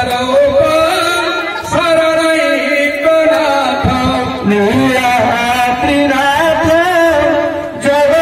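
Devotional singing and chanting, a melody with wavering, ornamented pitch.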